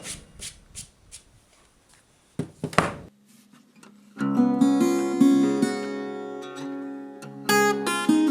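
A few scattered knocks and clicks, then acoustic guitar music that starts about four seconds in and carries on.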